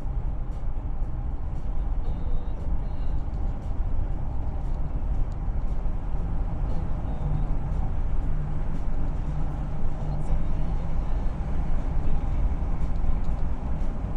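A car driving at speed on an asphalt road, giving a steady low rumble of tyres and engine.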